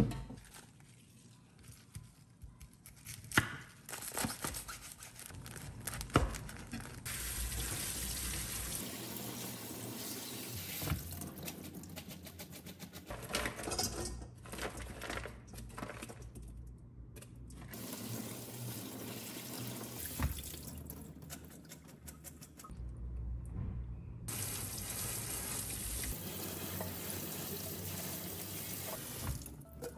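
Tap water running into a stainless-steel sink and colander as bean sprouts are rinsed, in several short cuts, with a few sharp knocks of kitchen handling in the first seconds.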